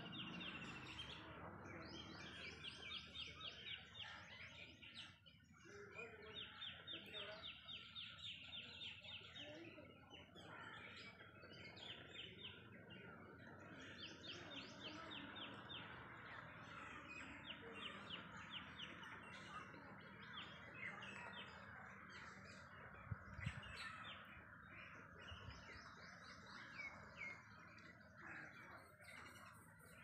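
Faint chorus of many birds calling: runs of fast chattering trills repeated every few seconds over a steady din of calls. A couple of low thumps come about three-quarters of the way through.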